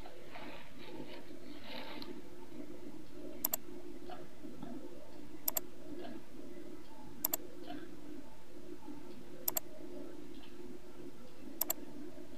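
Computer mouse clicking: five quick double clicks about two seconds apart, over a steady low hum.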